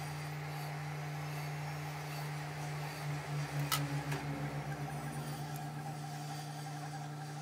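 Manual lathe running with a steady hum while a small steel firing pin turns in the three-jaw chuck. A sharp click comes about halfway through, the hum pulses briefly, and the spindle has stopped by near the end while the hum carries on.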